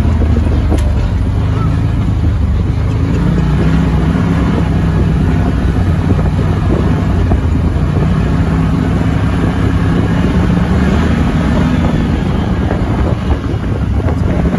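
ATV engine running steadily under way, its pitch shifting a little now and then, with wind buffeting the microphone.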